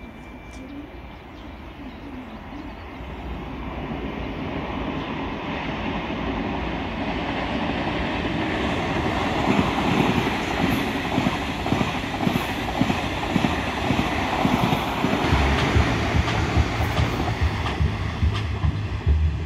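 Electric passenger trains passing on the line below, with wheels rumbling and clattering on the rails. The sound grows steadily louder as they come closer and is loudest from about halfway through.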